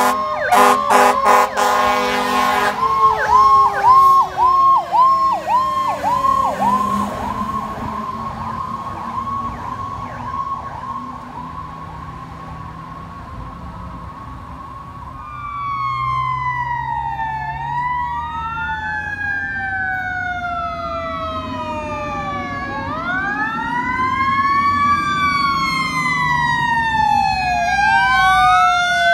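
Fire truck sirens. A few horn blasts near the start, then a fast-yelping electronic siren that settles into a steady tone and fades. From about halfway, several sirens wail up and down at once, overlapping, as more fire apparatus approach.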